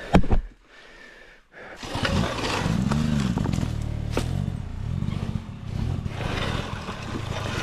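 A thud, then after a short lull a KTM dirt bike engine comes in about two seconds in and revs up and down over and over, the rider working the throttle to free the bike from a rut it is buried in to the footpegs.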